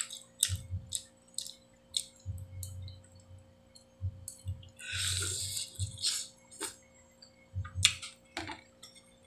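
Close-up eating sounds of a person chewing chicken: wet mouth clicks and smacks every fraction of a second, with a short slurp about five seconds in.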